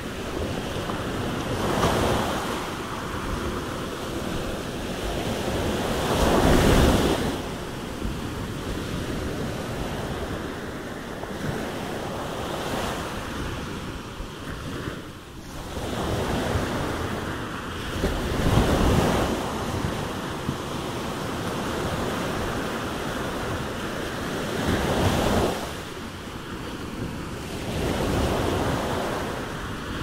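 Surf breaking on a sandy beach: a continuous wash of waves, with louder breakers swelling and fading every few seconds.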